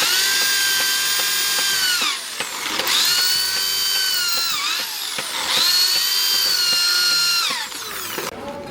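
A small electric power tool's motor running in three bursts of about two seconds each. Each burst is a high whine that starts suddenly and drops in pitch as the motor spins down when released.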